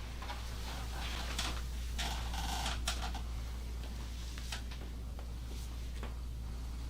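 Scattered rustling and brushing noises, densest about two seconds in, over a steady low hum.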